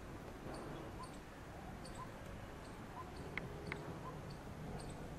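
Faint, scattered bird calls outdoors: short single notes roughly once a second and tiny high chirps, over a low background rumble, with two sharp clicks a little past halfway.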